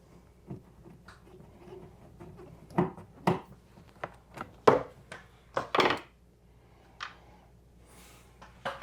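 Hand tools and door-panel hardware being handled: faint rustling, then a run of sharp clicks and knocks starting about three seconds in, the loudest around the middle.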